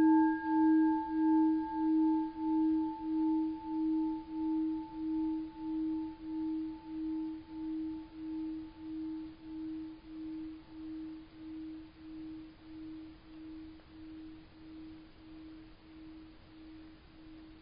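A 21.5 cm Japanese orin, a Buddhist bowl bell, ringing out from a single strike. One low tone wavers in a slow pulse, about one and a half beats a second, and fades steadily, while a higher overtone dies away about two thirds of the way through.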